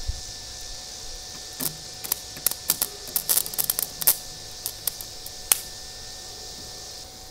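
Arc welding powered by car batteries: a welding rod held in locking pliers strikes an arc on a steel bracket, giving an irregular run of sharp cracks and pops for about four seconds, starting a little under two seconds in.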